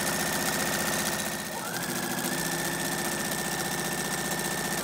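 Four-thread serger (overlocker) running at speed, overlocking fabric edges: a steady high motor whine over a rapid stitching chatter, which sags briefly about one and a half seconds in and then picks back up.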